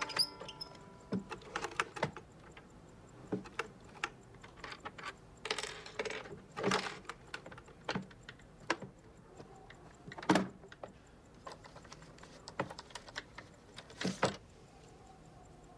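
Small objects handled in and around a wooden box: irregular clicks, knocks and light rattles of small parts, with a louder knock about ten seconds in and another near the end.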